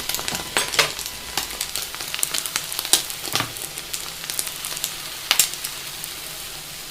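Egg and bread frying in butter in a hot pan, sizzling steadily, with a few light clicks and taps scattered through it.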